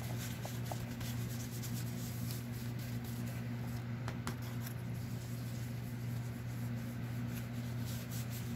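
A small foam ink-blending tool rubbing and dabbing on paper in short, irregular strokes as ink is worked into the page edges, over a steady low hum.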